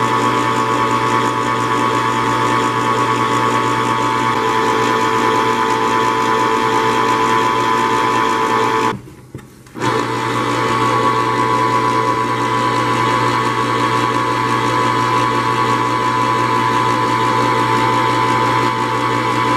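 Electric can opener running with a steady motor whine as it cuts around a can. It stops for under a second about halfway through, then runs again on the next can.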